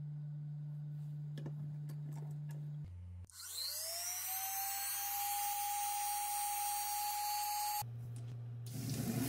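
Small handheld rotary tool (Dremel-type) with a sanding drum spinning up, its whine rising quickly in pitch and then running at a steady high speed for about four seconds before cutting off suddenly.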